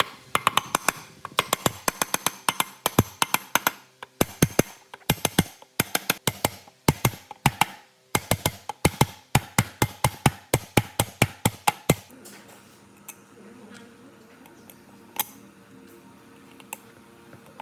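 A quick run of sharp taps or knocks in uneven bursts, which stops about twelve seconds in, leaving a faint low hum with an occasional single tick.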